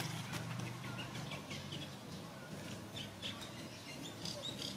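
Scattered short, high-pitched chirps and squeaks, many in quick succession, some sliding up or down in pitch, over a faint steady low hum.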